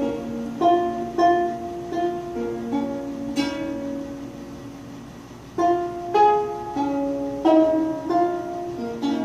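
Guzheng (Chinese zither) played by hand: a passage of plucked notes that ring on after each pluck. After a strong pluck about three and a half seconds in, the notes fade for about two seconds before the plucking picks up again.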